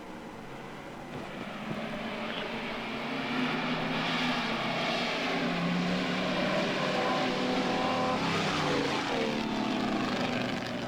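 Racing car engine running at high revs, growing louder as it approaches, with its pitch sliding down about eight to nine seconds in as it passes.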